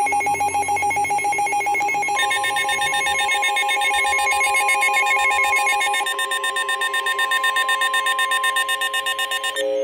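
Emergency Alert System weather-radio alert tones, steady and electronic. The tones change about two seconds in to a steady high alert tone that holds until just before the end, announcing a severe thunderstorm warning.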